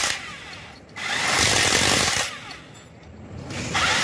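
Electric impact wrench running in bursts of a second or so on the bolts of a Hino 7D diesel cylinder head: one burst stops just as the sound begins, another runs from about a second in for just over a second, and a third starts near the end.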